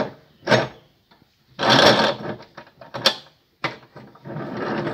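Steel vise clamp on a cut-off saw's base worked by hand: a few short metallic scrapes and clicks as the jaw slides and locks, with a longer scrape about two seconds in.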